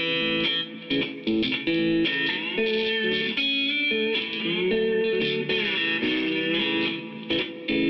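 Instrumental background music led by guitar, with notes that slide up and down in pitch.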